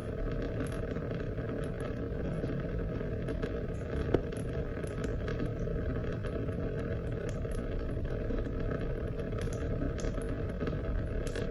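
Steady rain: an even wash of falling water with scattered small drip ticks, and one sharper, louder click about four seconds in.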